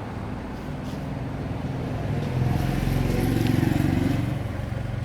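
A motor running with a low, steady pitch. It grows louder about two seconds in and eases off again near the end.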